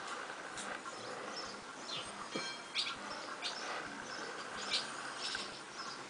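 Barn swallow fledglings giving a scattering of short, high chirps, a few at a time, over a steady background hiss.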